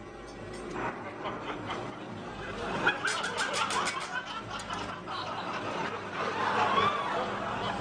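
Studio audience laughing, many voices together, swelling louder about three seconds in.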